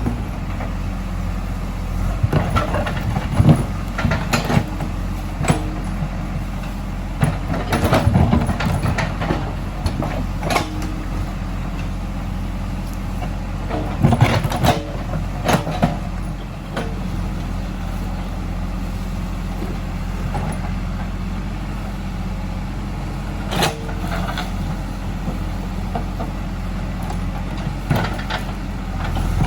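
Diesel engine of a JCB 3DX backhoe loader running steadily, with scattered sharp knocks and clanks from the working machine, several close together in a few short clusters.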